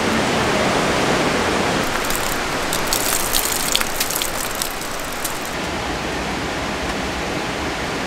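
Steady rush of rain and a rain-swollen creek, with a run of sharp ticks for a few seconds in the middle: large drops hitting the tarp.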